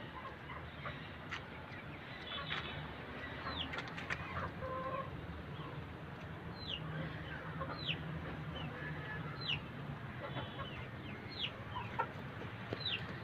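Chickens clucking quietly, with short high peeps that fall in pitch, repeating every second or so.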